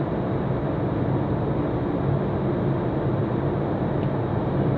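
Steady cabin noise inside the cockpit of an Eclipse 500 light jet in flight: a constant rush of airflow with an even hum from its twin Pratt & Whitney PW610F turbofan engines.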